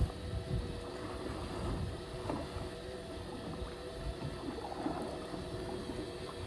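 Fishing boat's engine running with a steady hum, over wind and water noise.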